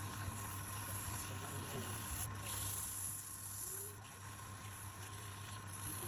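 Woodturning lathe running with a steady low hum and a constant higher tone, with a high hiss that drops out briefly about two seconds in and again near four seconds.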